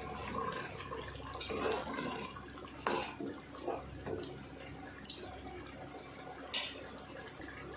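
A metal ladle stirring washed rice into hot mutton gravy in a large metal pot: liquid sloshing, with a few short scrapes and clinks of the ladle against the pot.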